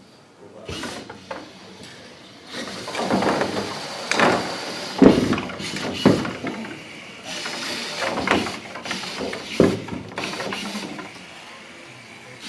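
Small autonomous tabletop robot at work: a running hiss of its drive with irregular knocks and clatters as it strikes and shoves objects, the sharpest knocks about five and six seconds in.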